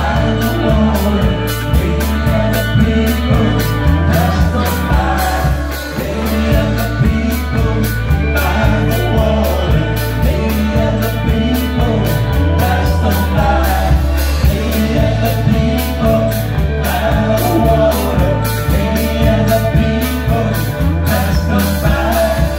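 Live country-rock band playing a song with electric guitar, bass and drums, with male vocalists singing into microphones over a steady, driving beat.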